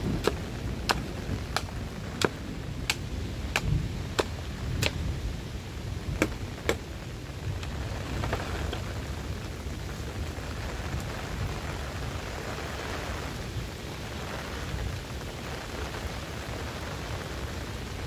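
Heavy rain falling steadily with a deep rumble. Over the first seven seconds it is overlaid by a run of sharp knocks, about one every two-thirds of a second, that then stop.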